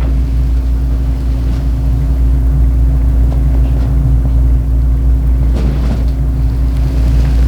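A steady, loud low mechanical hum, like a motor running continuously.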